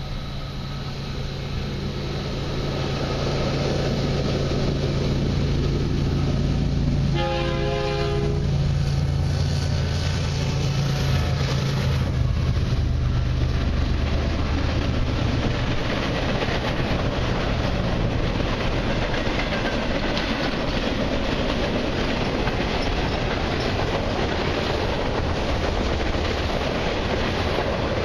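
CN freight train's diesel locomotives growing louder as they approach and pass beneath, with one short horn blast about seven seconds in. Then the steady rumble and clickety-clack of a long string of freight cars, covered hoppers and tank cars, rolling by close below.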